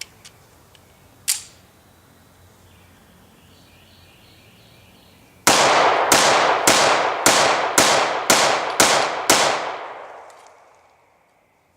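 Heavy Armor Division MCP multi-caliber pistol firing .45 ACP, emptying its magazine: eight shots about half a second apart, starting about five seconds in, the last one echoing and fading over a second or two. A single sharp click comes about a second in.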